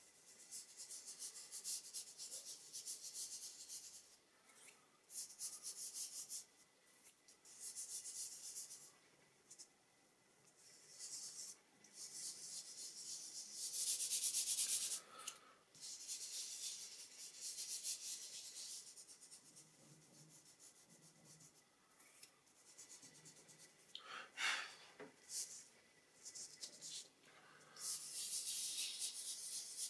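Fingers and hand rubbing dry pastel into thin drawing paper to blend it: a soft hiss coming in strokes of a second or two with short pauses between, and a couple of sharper scuffs about three-quarters of the way through.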